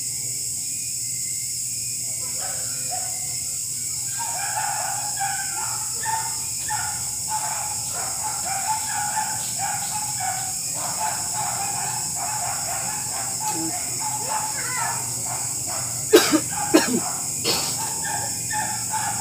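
Evening ambience: a steady high insect hiss with an animal calling over and over. A few sharp knocks near the end are the loudest sounds.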